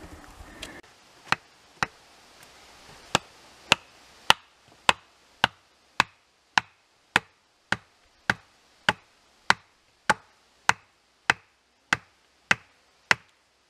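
Axe held short and hammered against a wooden stake to drive it into the ground: about twenty sharp wooden knocks, settling into a steady rhythm of a little under two a second.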